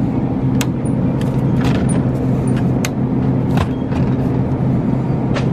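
Steady electrical hum of a refrigerated drinks cooler's compressor and fans, with a few sharp clicks scattered through it.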